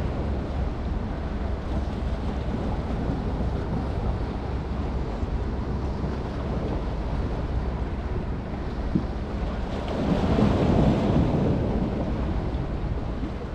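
Wind buffeting the microphone over the wash of waves, a steady rough rumble that grows louder for a couple of seconds about ten seconds in, with a single short click just before.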